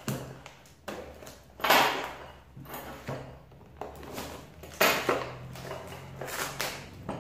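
Packing tape being pulled and peeled off a small cardboard box, in several short scratchy rips, with cardboard rustling and light knocks on a wooden table. The loudest rip comes about two seconds in, and two more near the end.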